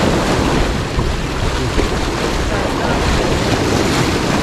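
Fairly big waves surging and splashing against rocks at the water's edge, a steady wash of surf, with wind buffeting the microphone.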